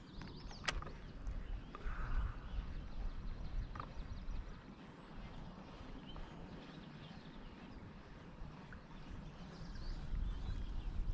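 Faint sounds of a fishing kayak on the water: a low, uneven rumble throughout, with a single sharp click less than a second in.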